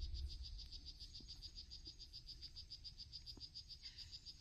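A steady, high-pitched pulsing trill, about eight pulses a second, from a calling rainforest animal, over a faint low rumble.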